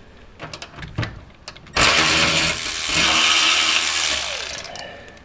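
Milwaukee M12 3/8-inch cordless ratchet motor running, spinning out a skid-plate bolt, after a few light clicks of handling. It runs loud and steady for about two and a half seconds, then winds down.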